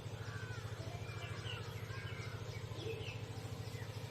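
A steady low hum with a fast, even flutter, and faint bird chirps scattered over it.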